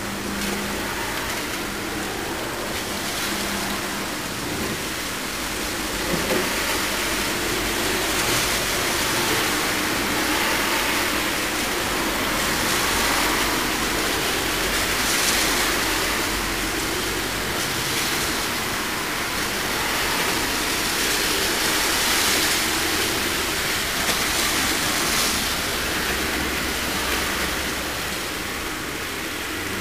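Heavy thunderstorm rain pouring down in a steady hiss that swells and eases every few seconds.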